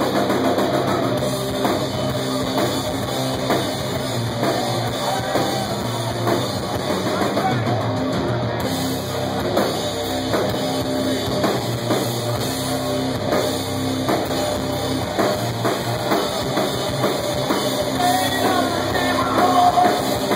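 Heavy metal band playing live: distorted electric guitars and bass over a pounding drum kit, heard from the audience.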